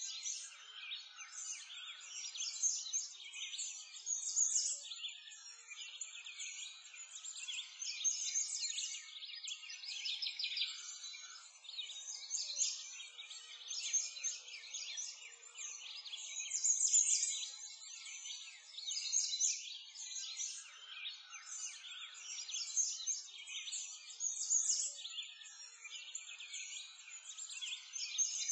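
A dense chorus of small birds chirping and twittering continuously, many short high calls overlapping with no pause, with no low sounds beneath them.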